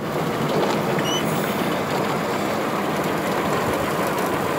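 Steady hiss of heavy rain and wet-road tyre noise heard from inside a moving car's cabin, with a brief high squeak about a second in.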